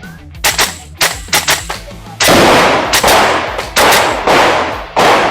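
Gas-blowback airsoft rifle firing a string of shots after the start beep: quick sharp cracks, often in pairs. From about two seconds in come louder bangs with a ringing tail, roughly once a second.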